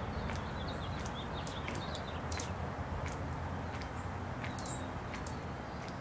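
Outdoor garden ambience: a steady low rumble with faint, short bird chirps in the first couple of seconds and scattered sharp ticks throughout.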